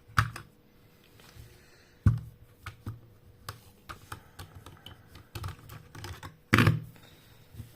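Irregular plastic clicks and knocks from the Aiwa HS-G09 cassette Walkman being handled and opened one-handed, with louder knocks at the start, about two seconds in, and the loudest one near the end.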